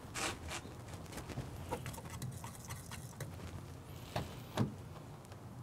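Scattered light clicks and knocks of PVC pipe, caps and a glue can's dauber being handled while solvent-welding caps onto the laterals, with two sharper knocks near the end. A faint steady hum lies underneath.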